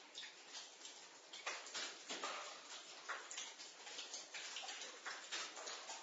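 Water dripping in a basement: drops landing two or three times a second at an irregular pace, each one a short tap.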